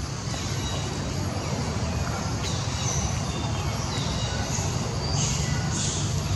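Steady low rumble of outdoor background noise, with a few faint, short, high-pitched chirps and squeaks scattered through it, several of them about four to six seconds in.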